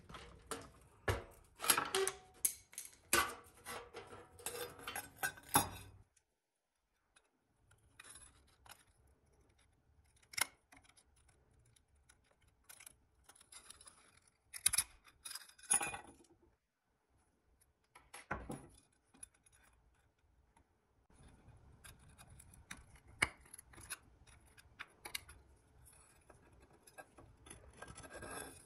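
Pliers and a small screwdriver clicking, tapping and scraping on the rusted pressed-steel parts of a 1950s Tonka toy while a wire hinge rod is worked out of a small door panel. A quick run of clicks for the first few seconds, then scattered taps and scrapes.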